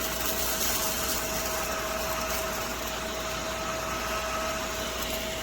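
Small AA-battery mini desktop vacuum running steadily with a constant high hum as it sucks up spilled salt from a desk.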